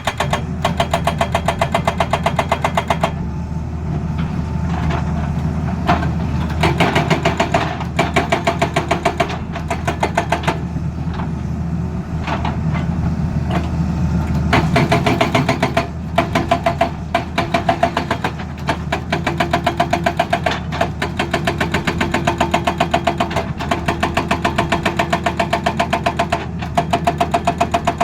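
Excavator-mounted hydraulic breaker hammering in rapid bursts of a few seconds each, with short pauses between them, over the excavator's diesel engine running steadily.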